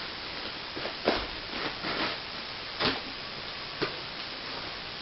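A shipping box being opened and its packaging handled: scattered short clicks, knocks and rustles, the sharpest about a second in and near three seconds.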